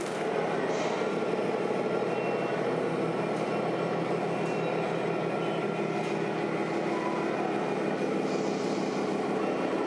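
Scale RC model truck running with a steady, even engine-like drone.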